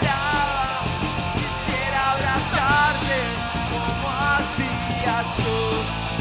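A rock band playing live, with a singer singing over electric guitar.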